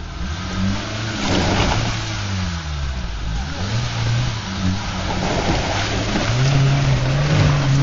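Suzuki SJ off-roader's engine revving up and down repeatedly under load as it climbs out of a muddy creek, with tyres churning mud and water; the revs build and hold higher near the end.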